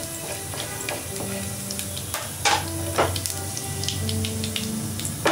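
Split chana dal, mustard seeds and cumin sizzling and crackling in hot mustard oil in a non-stick frying pan, with many small pops and two louder snaps about two and a half and three seconds in. Soft background music underneath.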